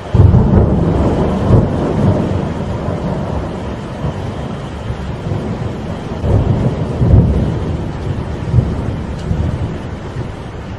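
Thunder rumbling over steady rain and wind: a loud roll breaks in suddenly and slowly fades, and a second rumble swells about six seconds in.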